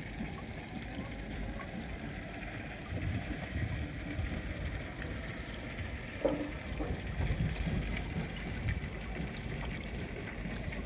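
Wind buffeting the microphone over lapping water, with one short tonal sound a little past halfway.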